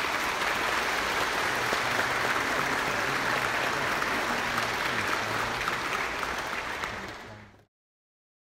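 Congregation applauding steadily, tapering briefly and then cutting off abruptly near the end.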